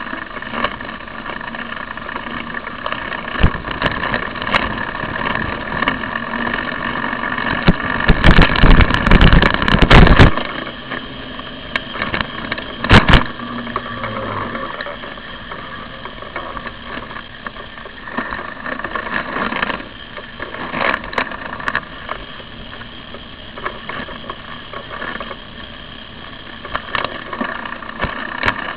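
Riding noise picked up by a camera carried on a moving bicycle: a steady hum with scattered knocks and jolts. It grows loud and rough for about two seconds a third of the way in, with one more sharp knock a few seconds later.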